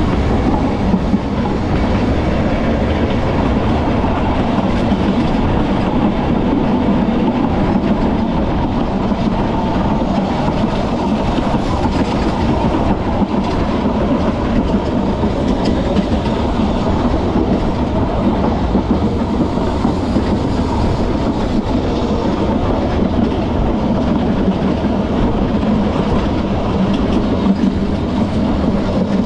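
Vintage narrow-gauge electric tram car of the Manx Electric Railway running steadily along the track, its wheels rolling on the rails.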